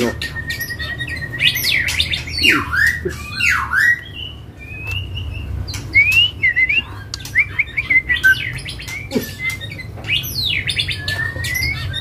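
Caged songbird singing in full voice: a fast, varied run of whistles, sweeping notes and harsh clicks and rasps, opening with a level trill. It is singing freely ('gacor') even though its tail is about to moult.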